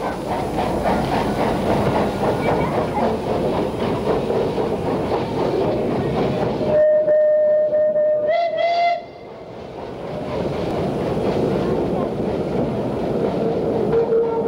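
Steam tram locomotive running, with its steam whistle blown for about two seconds midway. The whistle holds one pitch, rises slightly just before it cuts off sharply, and the running noise then returns.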